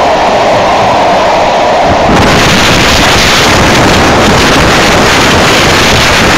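Loud wind buffeting the microphone of a phone held out of a moving train's window, over the running noise of the train; the wind noise turns brighter and harsher about two seconds in.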